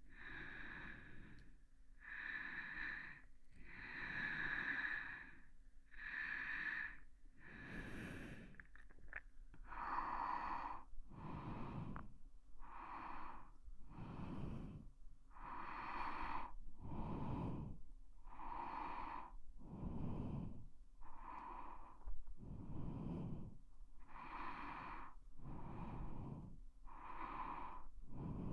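ASMR breathing close to the microphone: a steady series of in-and-out breaths, about one every one and a half to two seconds. The breaths change in tone, becoming deeper, about ten seconds in.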